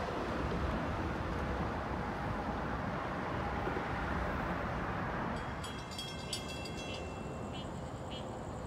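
Amtrak autorack cars rolling away down the track: a steady rumble of wheels on rail that drops off about five seconds in. After it, a quieter background with a high steady buzz and a few short high chirps.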